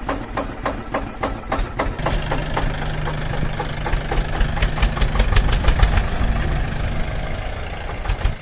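Engine running with a rapid, clattering knock. A steady low hum joins about two seconds in, and the sound cuts off suddenly at the end.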